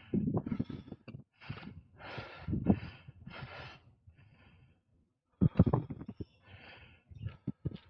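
A cyclist breathing hard and fast, heavy huffing breaths in and out, from the effort of pedalling up a steady climb. A short cluster of sharp low thumps comes about halfway through.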